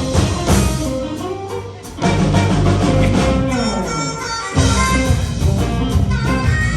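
Live blues band playing an instrumental passage with drums, bass and guitar. The band drops back twice, with sliding, falling notes, and comes back in at full strength about two seconds and four and a half seconds in.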